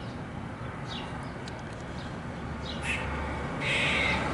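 Squirrel alarm calling: a few short, sharp calls, then a louder, longer raspy call near the end. The call is taken for the sound of an agitated squirrel.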